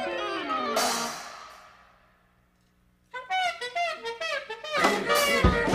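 Jazzy cartoon film score: a falling run of notes ends in a cymbal crash about a second in, which rings away into a second of silence. The band then comes back with sliding horn notes, and loud drum hits join near the end.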